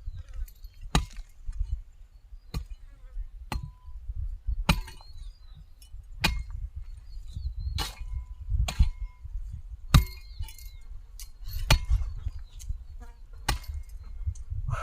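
Weeding by hand: a metal-bladed garden tool chopping into soil in a steady rhythm, a sharp strike about every second and a half, some with a brief metallic clink.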